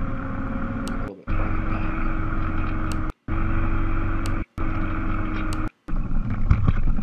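Small camera drone's electric motors buzzing steadily as it flies, a hum in several tones that steps up in pitch about a second in. The sound drops out for a split second several times, and near the end turns into a louder, uneven low rumble as the drone comes down in a crash landing.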